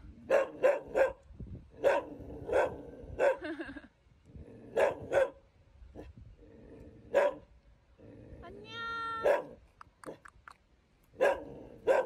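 Dogs barking: about a dozen short, sharp barks at uneven intervals. About nine seconds in there is one high, drawn-out whining call.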